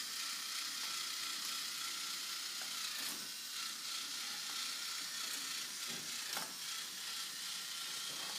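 Motorised K'nex ball-machine lift running: a steady whir and hiss from its small motor and plastic gearing, with a few sharp clicks about three and six seconds in.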